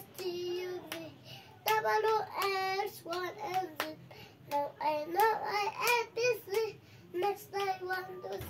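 A young boy singing a children's song, some notes held, with sharp hand claps between the sung phrases.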